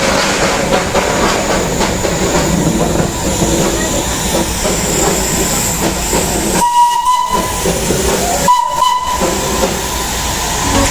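Darjeeling Himalayan Railway toy train's steam locomotive, with a steady loud hiss of steam. The whistle sounds twice in short blasts, about seven and nine seconds in.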